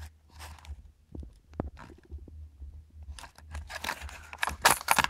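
Small plastic vials of surface-mounted components being handled in a tray: a few scattered clicks and knocks, then, about three seconds in, a denser clatter of plastic containers knocking together and parts rattling inside them. A low hum runs underneath.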